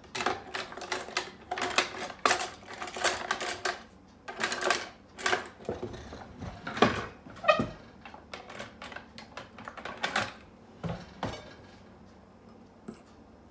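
Kitchen utensils clinking and clattering as a hand rummages through a cutlery drawer, the clatter dying down near the end.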